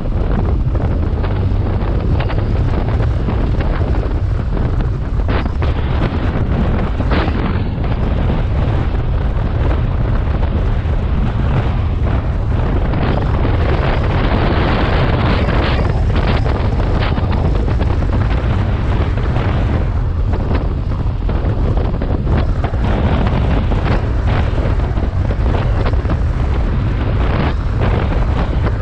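Steady wind buffeting on the microphone of a BMW R 1250 GS motorcycle on the move, with the bike's boxer-twin engine and the rush of the ride underneath and a few short gusts cracking through.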